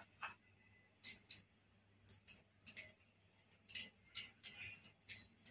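About ten faint, irregular light metallic clicks and clinks as copper tip parts are handled and fitted back onto the head of a straight plasma cutting torch.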